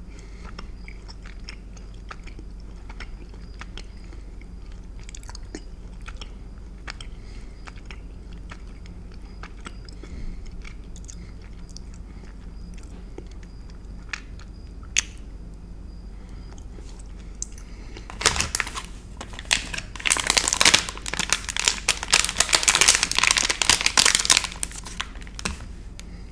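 Close-miked mouth-closed chewing of a soft caramel and chocolate chew, with faint scattered wet clicks. About two-thirds of the way through, loud dense crinkling of a plastic candy wrapper being unwrapped takes over for several seconds, then stops.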